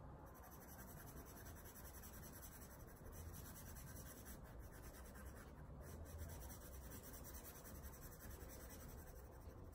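Faint, steady scratching of a green colored pencil shading on sketchbook paper.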